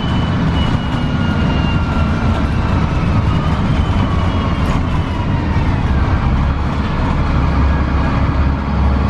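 A 2002 Gillig Advantage transit bus running, heard from inside the cabin: the Cummins ISC diesel's steady low drone with road noise. A faint high whine falls in pitch a few seconds in.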